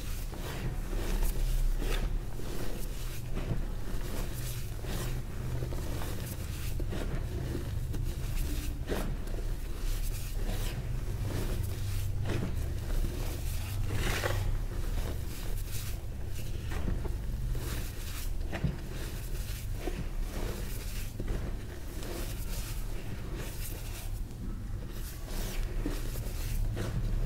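Crushed, powdery gym chalk being crumbled and rubbed by hand, giving soft, irregular crunches and dry rustling over a steady low hum.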